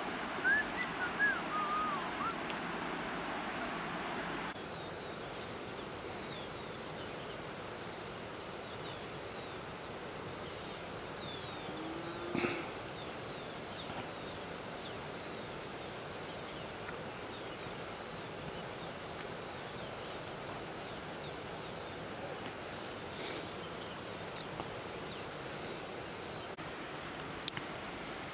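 Outdoor rural ambience: a steady hiss of background noise with birds chirping now and then, a quick run of chirps in the first few seconds and a few high ones later. One short knock about twelve seconds in.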